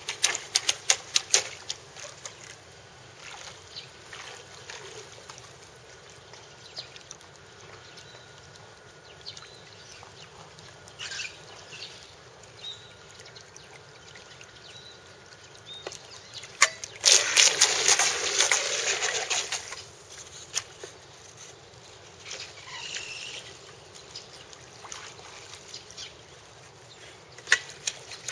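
Water trickling and splashing around a small radio-controlled boat, with a run of sharp clicks at the start and a loud burst of churning splashing about seventeen seconds in.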